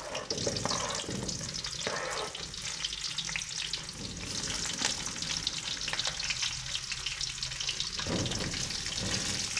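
Cut onions, garlic, ginger, green chillies and halved tomatoes dropping from a cutting board into hot oil in a karahi, sizzling and crackling steadily. The sizzle flares louder a few times as new pieces hit the oil, the last time near the end as the tomatoes slide in.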